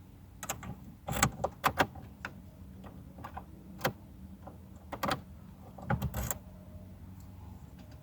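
A key ring jangling with scattered clicks as the key is worked in a newly installed ignition lock cylinder; about a dozen separate sharp clicks and rattles, bunched around one to two seconds in and again around six seconds.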